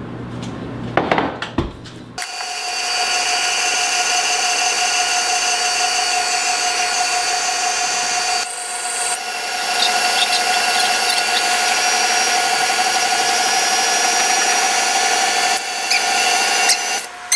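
Stand mixer motor switching on about two seconds in and running with a steady whine, beating the rest of the powdered sugar into cream cheese frosting. It grows louder about halfway through and cuts off near the end.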